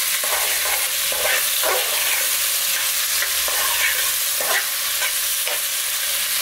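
Diced potatoes, carrots and onions frying with a steady sizzle in a metal pot, while a metal spoon stirs them, scraping across the pot several times at uneven intervals.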